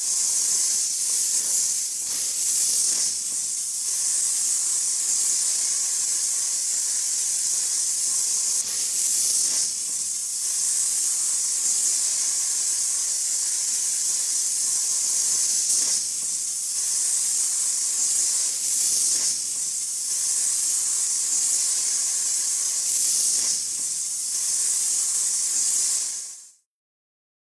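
A steady, high-pitched hiss that cuts off suddenly near the end.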